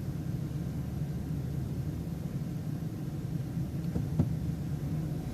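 Transit bus driving along a street: a steady low engine drone with road noise, and a couple of faint knocks about four seconds in.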